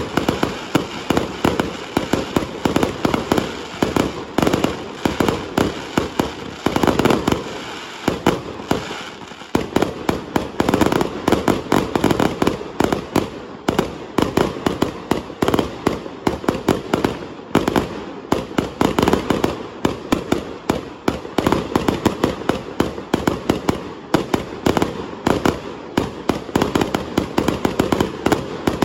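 Fireworks going off in a dense, unbroken barrage of rapid, sharp bangs, many to the second.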